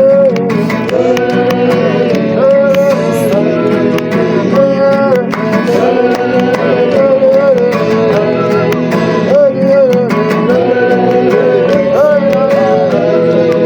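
Worship song sung to a held, gliding melody, with instruments and light percussion accompanying.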